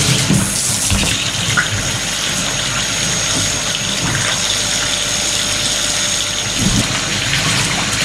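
Water from a hand shower running steadily through a refrigerator's rubber condensate drain hose held against the shower head, flushing the hose out into a bathtub.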